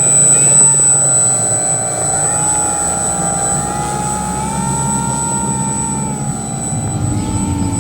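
RC model aeroplane's motor and propeller droning steadily, the pitch drifting slowly up and down.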